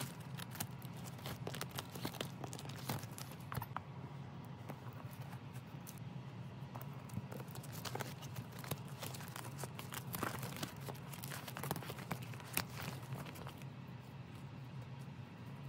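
Clear plastic binder sleeves crinkling and rustling as the pages of a ring binder are turned by hand, with many small clicks and taps.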